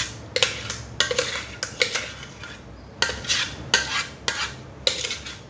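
Metal spoon scraping puto batter out of a stainless-steel Thermomix jug into a bowl: repeated short scrapes of metal on metal, about two to three a second, with a brief pause about halfway.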